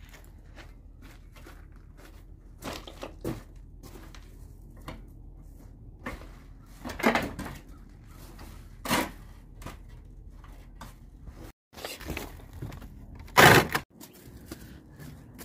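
Footsteps and scuffing on dry yard debris, with scattered short knocks and rustles; a few louder thuds, the loudest a short one near the end.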